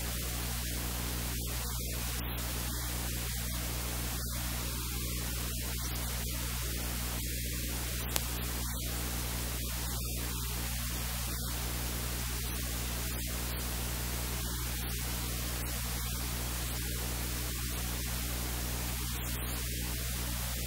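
Steady hiss of recording noise with a low electrical hum, and a single brief click about eight seconds in.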